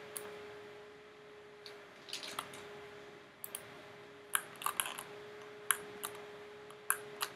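Computer mouse clicking, a dozen or so short irregular clicks, over a faint steady electrical hum.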